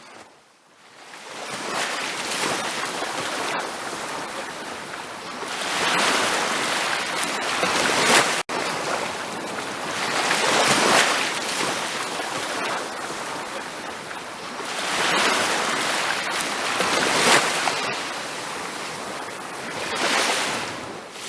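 Ocean waves breaking and washing up a beach, the surf swelling and falling back every few seconds, with a split-second cut-out about eight seconds in.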